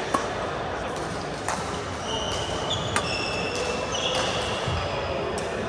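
Badminton rally: three sharp racket strikes on the shuttlecock, about a second and a half apart, with shoes squeaking on the court floor and voices chattering in the background.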